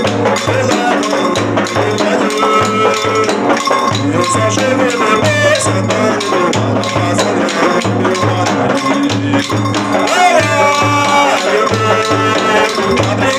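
Bumba meu boi toada music in the baixada style: a steady low drumbeat with rattles shaking over it and pitched melodic lines on top.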